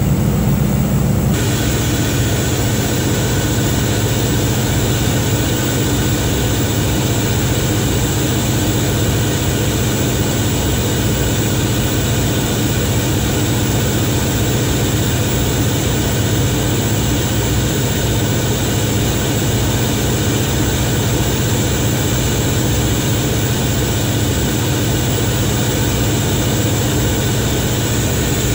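Caterpillar XQ1475 1475 kW generator set's 16-cylinder gas engine running steadily at about 1800 rpm under a load test: a loud, even drone.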